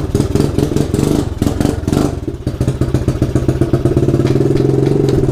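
A 110cc pit bike's single-cylinder engine revved in place, loud and close, held at a fairly steady high speed with rapid firing pulses and a slight dip in pitch about two seconds in.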